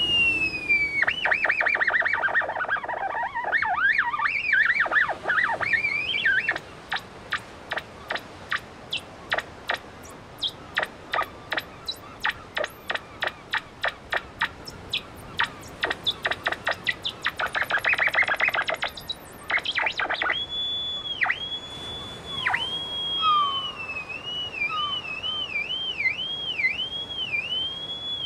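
Theremin-style electronic instrument played by a hand moving near its antenna: pure whistling tones slide up and down, then give way to a long run of sharp regular clicks. Near the end a high steady tone dips in pitch over and over.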